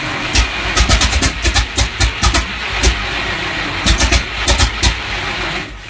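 The rebuilt engine of a J.G. Brill Model 55 railcar being cranked over, with irregular loud pops as cylinders fire now and then without the engine catching. The cranking stops suddenly near the end.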